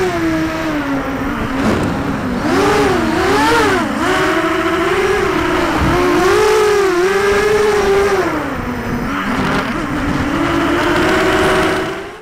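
ZMR 250 racing quadcopter's brushless motors whining, the pitch rising and falling again and again with the throttle through flips and turns, over wind rush on the onboard camera's microphone. The sound fades out at the very end.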